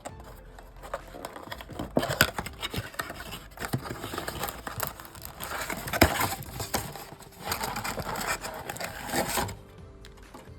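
Crinkling and tearing of the plastic and cardboard packaging of a box of trading cards being opened, with many small clicks and scrapes and one sharp snap about six seconds in.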